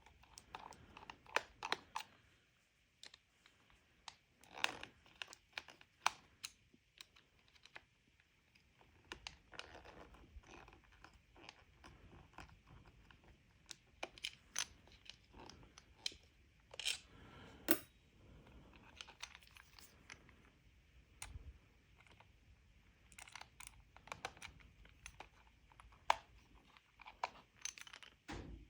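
Faint, scattered light clicks and taps of hand work with a small Phillips screwdriver on a plastic radio control head, as tiny screws are backed out and small parts handled.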